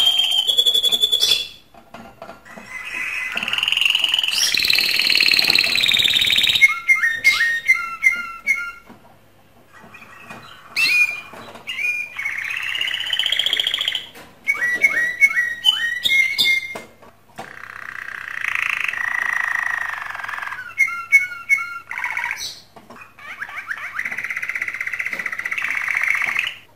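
Male domestic canary singing its breeding song, in the excited state meant to stimulate hens to mate. Phrases of fast rolling trills alternate with bursts of rapid repeated chip notes, with short pauses between phrases.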